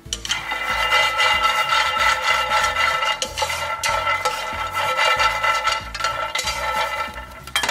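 Background music of steady held notes, over a wooden spatula stirring and scraping dry-roasting peanuts in a nonstick frying pan.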